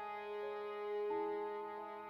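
Background music: slow, sustained instrumental notes over a steady held low tone, the melody changing note every half second or so.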